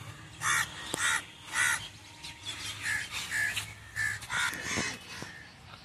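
Crow cawing: three loud caws about half a second apart, then a string of softer calls.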